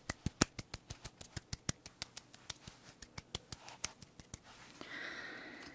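Light fingertip tapping, several quick, uneven taps a second, patting skincare product in so it absorbs. Near the end the taps stop and a soft hiss takes over.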